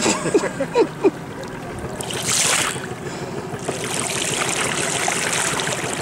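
River water rushing and splashing along the side of a moving boat, with a brief louder hiss of spray about two seconds in, settling into a steady hiss of water.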